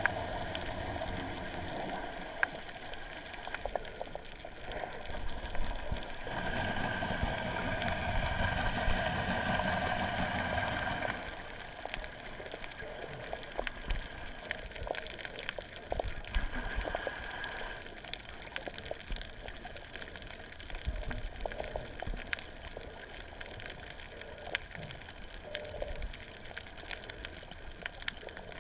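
Underwater sound of sea water picked up by a camera held below the surface: a muffled, steady wash with scattered crackling clicks throughout, louder for a few seconds in the first half.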